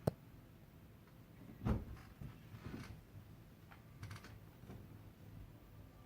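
Sleeping pug snorting and snuffling in short, separate bursts, the loudest about two seconds in, with a sharp click right at the start.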